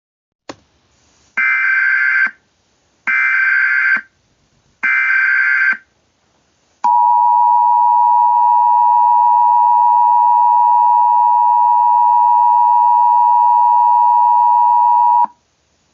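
Emergency Alert System alert opening: three short screeching bursts of SAME header data, about a second each, then the steady two-tone EAS attention signal held for about eight seconds before cutting off.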